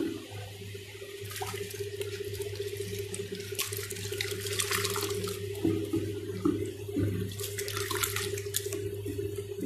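Paint and water being stirred with a stick in a bucket: liquid sloshing and swishing in bursts, strongest about halfway through and again near the end, over a steady low hum.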